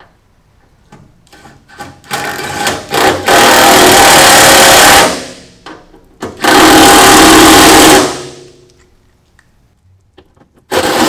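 Cordless 1/4-inch impact driver running caster bolts into a roll cart: a few short spins as the bolts are started, then two long bursts of rapid impact hammering, about two seconds each, as they are tightened, and another short burst near the end.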